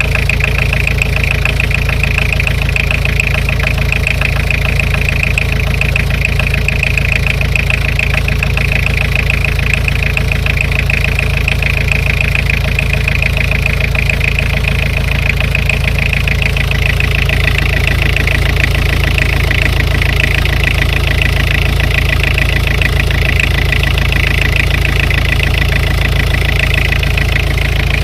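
Nissan Primera P11's CD20T 2.0-litre four-cylinder turbodiesel running steadily at idle with a rapid knock. This is the cold-engine knock whose cause is being hunted.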